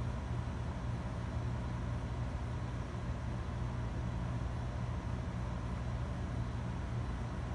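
Steady low hum with an even hiss over it, as from the fans of computer and network equipment running. It does not change.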